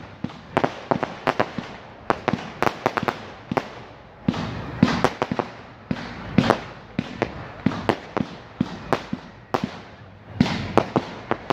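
Low-noise display fireworks going off in rapid, irregular succession: a steady stream of pops and bangs, often several a second, with crackle between them.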